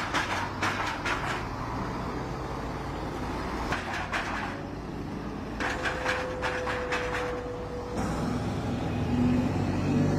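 Heavy military vehicle engines running as an armoured personnel carrier and then an army truck drive by, with metallic clanks and rattles. A deeper, louder engine sound takes over about eight seconds in.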